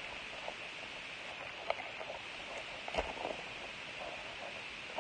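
Foil wrapper of a basketball trading-card pack crinkling as it is peeled open by hand: soft scattered crackles, the sharpest about two and three seconds in, over a steady hiss.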